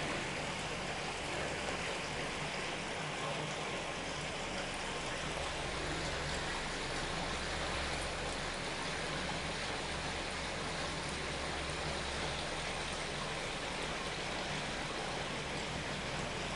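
Steady rush of water flowing through an irrigation channel's water box, with a faint low hum in the middle.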